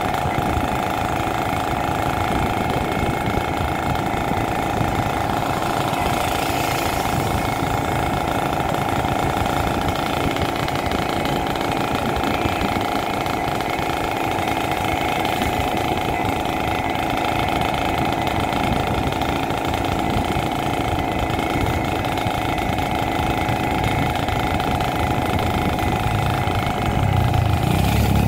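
Motorcycle engine running steadily at cruising speed, with road and wind noise. A deeper, louder rumble comes in near the end.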